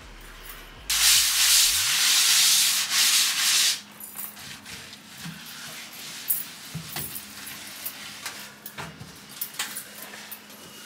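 Kitchen surface being scrubbed: about three seconds of steady, loud rubbing, followed by quieter light scrapes and taps.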